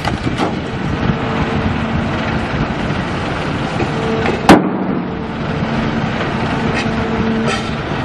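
Heavy machinery running, with a low hum that swells and drops away several times. A single loud, sharp crack sounds about halfway through.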